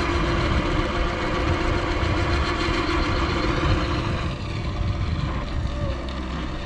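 A boat motor running steadily, a constant hum under a rushing noise, easing slightly about four seconds in.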